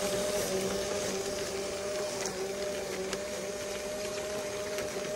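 Radio-controlled Volvo truck driving: a steady two-tone whine from its small electric drive motor and gearbox over a hiss. The pitch rises slightly near the end.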